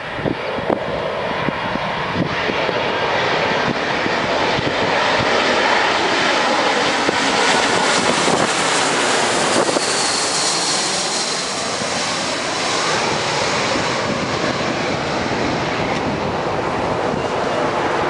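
McDonnell Douglas MD-88 jet airliner on final approach, gear down, passing low overhead. The rush of its two rear-mounted turbofans builds over several seconds and is loudest from about six to eleven seconds in, with a faint high whine that drops in pitch as it passes.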